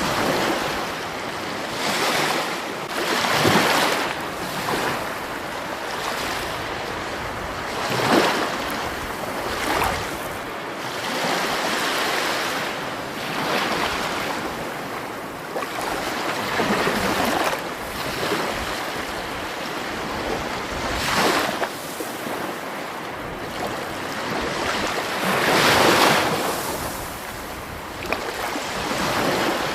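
Rushing water, a continuous splashing wash that swells louder every few seconds.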